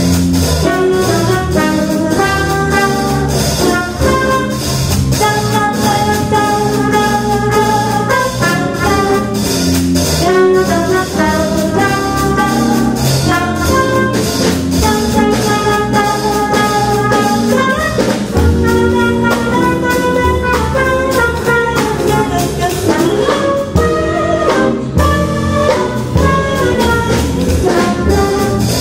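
Live jazz combo playing a bebop tune: trumpet and a woman's voice on the melody over grand piano, upright bass and drum kit.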